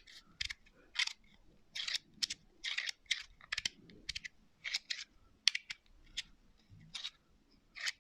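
Magnetic fidget slider being slid back and forth by hand: a string of soft clicks and short sandy swishes, roughly two a second, as the plates slide and snap into place. Very quiet.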